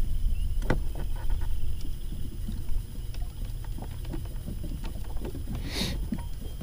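Steady low outdoor rumble around a small fishing boat, with scattered small clicks and knocks from handling a baitcasting reel and rigged plastic worm, and a short hiss about six seconds in.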